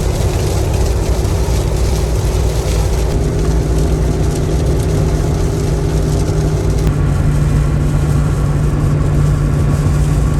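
Cabin noise of a Jeep Wrangler Rubicon 392 at highway speed on a flooded, rain-soaked interstate: the 6.4-litre V8's steady drone over tyre and wind rumble. About seven seconds in, the engine's pitch shifts and the hiss above it drops away.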